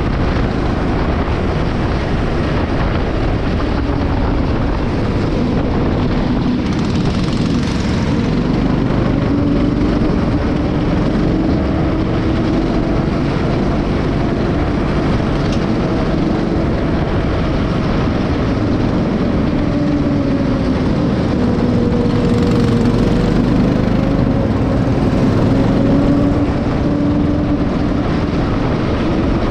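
Honda four-stroke engine of a rental go-kart running hard at racing speed, heard onboard over a steady rush of wind noise. Its pitch falls and climbs again several times.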